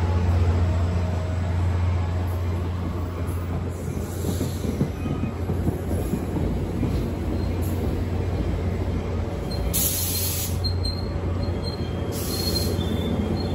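NJ Transit passenger coaches rolling past along the platform, a steady low rumble of wheels on the rails as the train slows. Faint high brake squeals and two short hisses come in from about ten seconds in.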